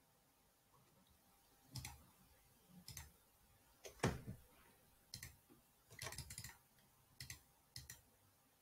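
Faint, scattered computer keyboard keystrokes and mouse clicks: single clicks a second or so apart, a louder one with a low thud about four seconds in, and a quick run of keystrokes around six seconds.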